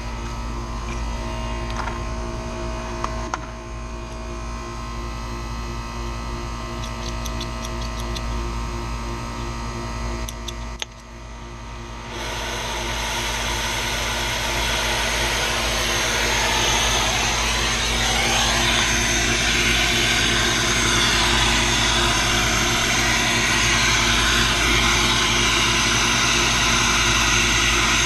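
Steady machine hum, then, about twelve seconds in, a louder steady whooshing machine noise starts suddenly and keeps running.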